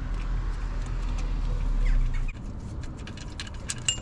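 A low steady rumble cuts off suddenly a little over two seconds in, followed by a quick run of light clicks from a hand tool working the bolt of an idler pulley. Birds chirp briefly in the background.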